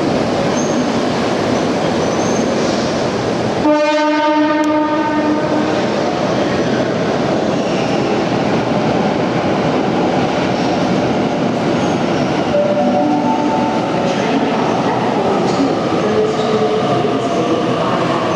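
Electric trains in an underground station: the steady rumble and rail clatter of the heritage Red Set F1 pulling out, cut across about four seconds in by a single two-second train horn blast. From about twelve seconds in, a double-deck suburban electric train runs in alongside, its motors giving a whine that steps and slides in pitch over the rumble.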